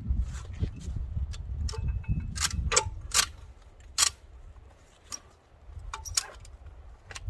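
Ratchet strap being released and unhooked: a series of sharp metallic clicks and clinks, irregularly spaced, over a low rumble that fades about halfway through.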